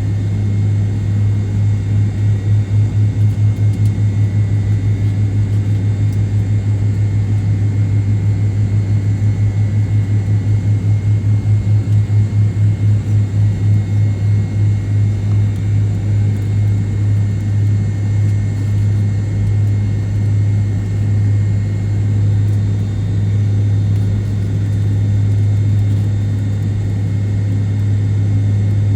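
Cabin noise of an MD-88 jet airliner: a loud, steady low hum from its rear-mounted Pratt & Whitney JT8D engines with a faint high whine, throbbing rhythmically for about the first fifteen seconds before it evens out.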